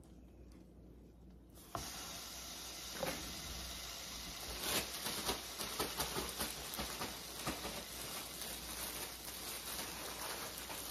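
Mayonnaise-coated brioche grilled cheese sandwich sizzling in a hot frying pan. The sizzle starts suddenly about two seconds in as the sandwich goes into the pan, then runs on as a steady hiss with scattered crackles and pops.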